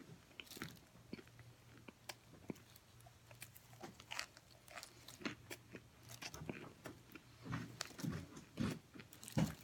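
Close-up chewing of oven-baked cornstarch chunks: irregular crunches and crackles as the starch is bitten and chewed, with some louder mouth sounds near the end.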